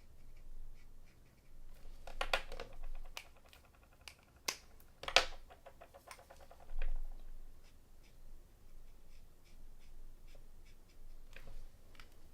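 Marker tip scratching on card stock, with scattered light clicks and a few sharper clicks as markers are handled and set down.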